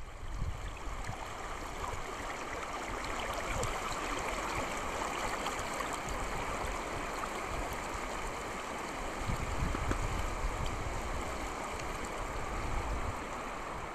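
Steady rushing of flowing creek water.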